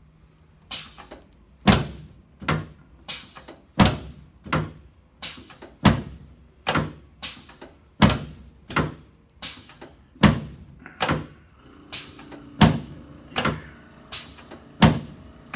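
Chiropractic adjusting table thumping in a steady rhythm, about one sharp thump every 0.7 seconds, while the right sacroiliac joint is being adjusted.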